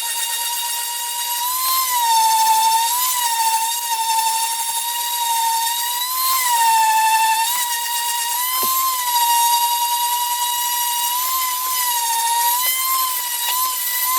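A small high-speed power tool's motor running with a steady high whine, its pitch sagging briefly several times as the work is pressed against it.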